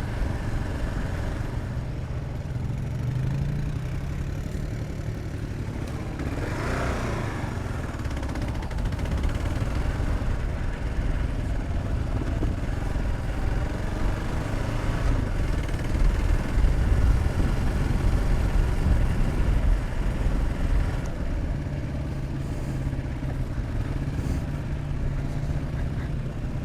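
Single-cylinder dual-sport motorcycle engine running while riding a trail, with the revs rising and falling briefly about a quarter of the way in and the engine getting louder past the middle.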